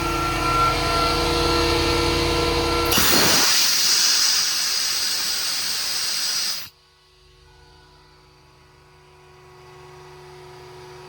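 Truck-mounted hydraulic air compressor running with a steady hum, then compressed air hissing out loudly for about three and a half seconds before cutting off suddenly. A much quieter steady hum follows.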